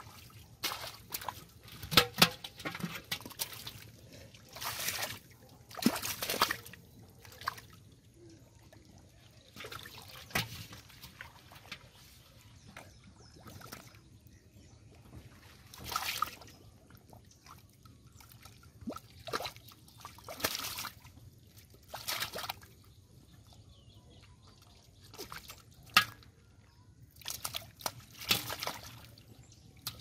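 Irregular splashing and sloshing in shallow muddy water as hands dig in the mud and grab struggling fish, in short bursts with quieter stretches between.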